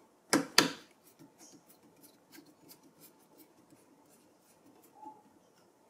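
Two sharp clicks near the start, then faint scratchy ticks of a small screwdriver turning a tiny screw that holds an M.2 Wi-Fi card to a computer motherboard.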